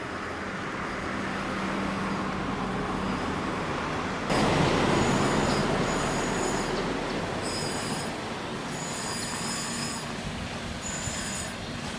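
Passing traffic on a narrow street: a vehicle's steady hum, growing suddenly louder about four seconds in, with a high-pitched whine that comes and goes.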